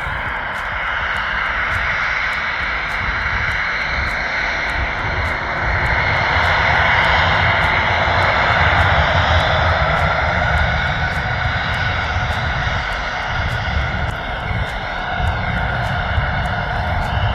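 Jet airliner's engines running at high power, a steady loud noise that swells slightly in the middle, with a faint whine gliding in pitch.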